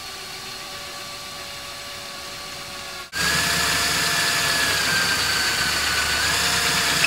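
Electric drill running steadily while boring the marked mounting hole. About three seconds in it breaks off suddenly and comes back much louder, its whine sagging slightly in pitch and then rising again.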